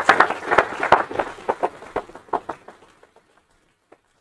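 Audience applauding, the clapping thinning out and dying away about three seconds in.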